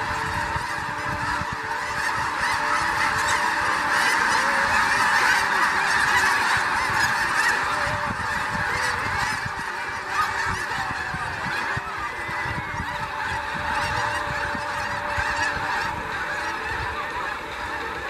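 A huge flock of snow geese calling at once as they take off, a dense, continuous din of honks that swells a few seconds in and eases slightly later.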